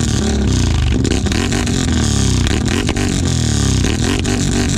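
Can-Am ATV engine breathing through an RJWC Mud Series dual exhaust, revved hard several times in a row, the pitch rising and falling with each blip. This is the free-revving peak of a decibel-meter exhaust loudness test.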